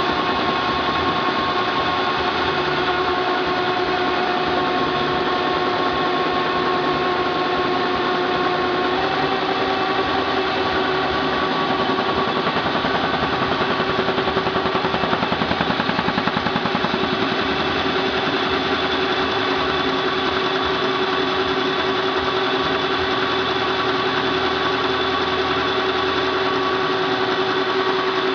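A rebuilt Halm Super Jet two-color offset envelope press running at production speed, feeding envelopes: a steady fast mechanical clatter over a constant hum. Its pitch shifts slightly about nine seconds in.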